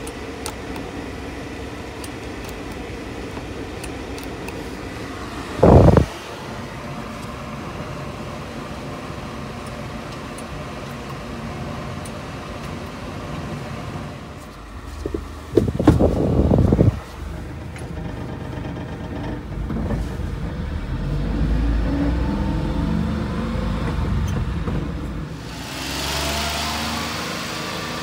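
A 1993 Daihatsu Hijet mini truck's engine running steadily, broken by a short loud sound about six seconds in and another cluster of loud sounds around sixteen seconds in. Later the engine gets louder and deeper for several seconds.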